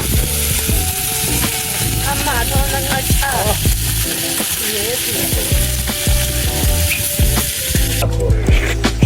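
Food sizzling over heat: a steady frying hiss that cuts off abruptly about eight seconds in. Faint wavering tones run underneath.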